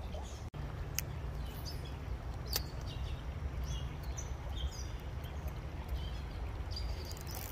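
Outdoor ambience: scattered faint bird chirps over a steady low rumble, with a couple of sharp clicks early on.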